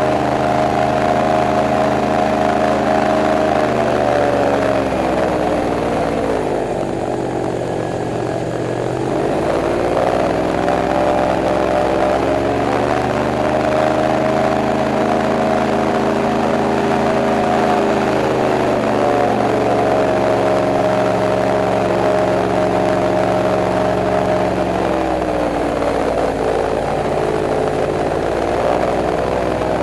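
Airboat engine and pusher propeller running under way: a loud, steady drone with many overtones. About six seconds in the engine note drops, then climbs back a few seconds later. It dips and recovers again near the end.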